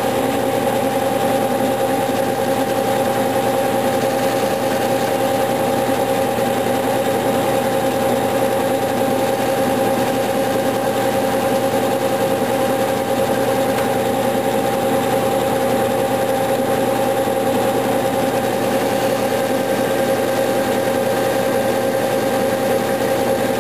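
Clausing metal lathe running at medium speed, a steady machine hum with a constant whine, while its tool takes a slow, fine-feed cut across the copper commutator of a tractor generator armature.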